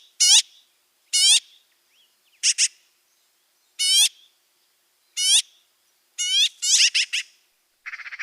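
Magpie giving a series of short, harsh calls, about one a second, with a quicker run of three or four calls near the end.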